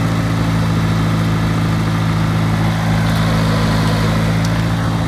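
John Deere 2850 tractor's diesel engine idling steadily at an even pitch.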